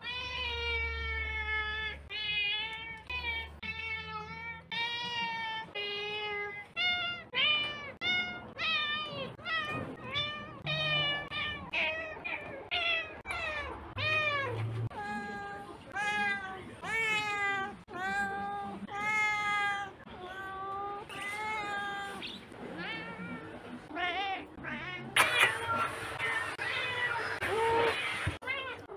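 Domestic cats meowing over and over, about one short meow a second, many of them rising and then falling in pitch. Near the end a loud rustling noise joins the meows.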